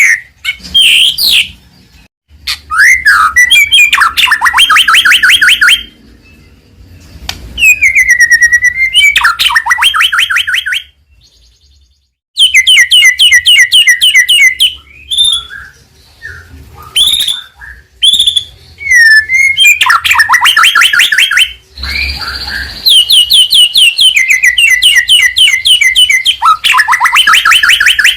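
White-rumped shama (murai batu) in loud full song: whistled, gliding phrases alternating with fast rattling runs of repeated notes, in bursts separated by short pauses.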